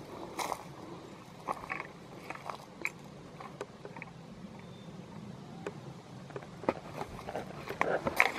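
Footsteps through forest undergrowth, with irregular small cracks and snaps of twigs and brush underfoot.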